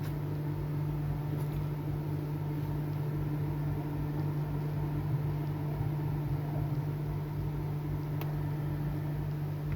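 Small electric motor humming steadily, with a strong low mains-frequency drone.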